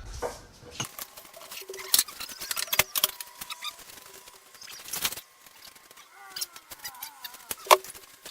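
Scattered sharp knocks, clicks and scrapes from handling and shifting small pieces of wood, with the loudest knocks about two, five and nearly eight seconds in. Faint short chirps come in around six to seven seconds.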